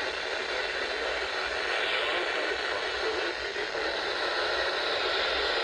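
Steady radio static: an even hiss with no alert tones or clear speech, the sound of a weak or lost broadcast signal on the receiver.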